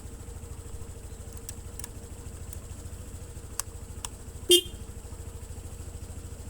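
Denso single-disc car horn, fitted to a scooter and wired without a relay, giving one short, loud toot about four and a half seconds in, over a steady low rumble.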